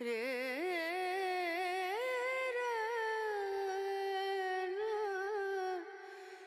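Background music: one wordless voice sings a slow melody with wavering, ornamented pitch and no beat, as one long phrase that ends near the end.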